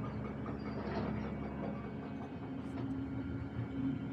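Cable car machinery or gondola running with a steady mechanical hum over a low rumble; the hum's pitch steps up a little about halfway through.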